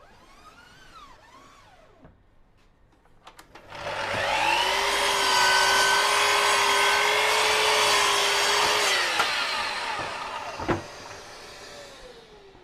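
Electric power saw motor spinning up, running at a steady pitch for about five seconds, then winding down, with a sharp click shortly after it stops. Sheet panels are being cut.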